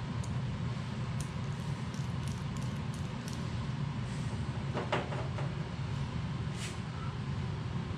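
Light metallic clicks and clinks as differential pinion bearing parts are handled, with a short cluster of clinks about five seconds in, over a steady low shop hum.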